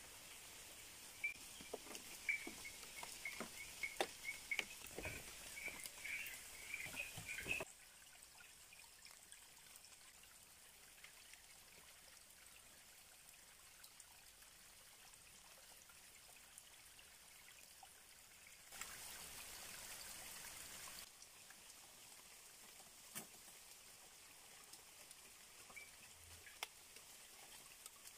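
Faint trickle of a shallow rocky stream. In the first seven seconds there are scattered knocks and clicks of split bamboo being handled, and a run of high chirps. A louder hiss comes in for a couple of seconds past the middle.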